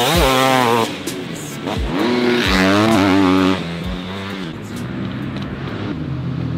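Motocross dirt bike engine revving hard, its pitch climbing and dropping with the throttle in two loud runs over the first three and a half seconds, then running lower and quieter.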